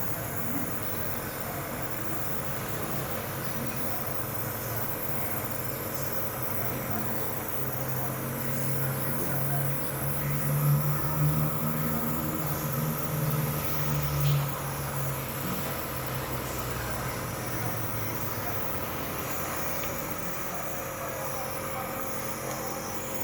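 Nebulizer compressor running steadily while a baby's inhalation therapy loosens phlegm: a continuous mechanical hum and hiss, with a deeper hum swelling for several seconds in the middle.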